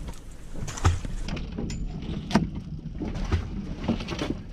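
Deck sound on a fishing boat at sea: a steady low rumble with a few short knocks and clicks of gear scattered through it.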